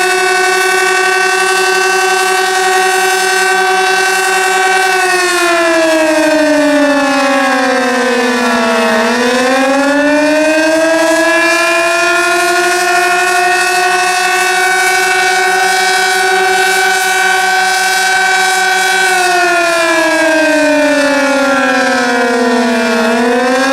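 Sentry 16V1T-B outdoor warning siren sounding the attack signal: a loud, steady wail whose pitch twice sags for a few seconds and climbs back up. It sounds lower pitched than usual, which the owner takes as a sign that the siren is 'sick'.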